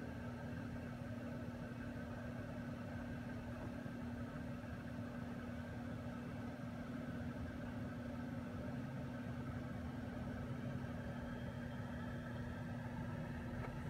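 Steady low machine hum with one constant tone in it.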